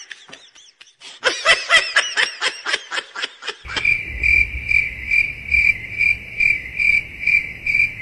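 High-pitched giggling in quick bursts. About three and a half seconds in, it gives way to a steady cricket-like chirp that pulses about two and a half times a second over a low hum.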